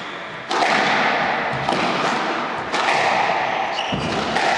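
Squash rally: a squash ball struck by rackets and hitting the court walls, three or four sharp knocks about a second apart, each ringing in the court.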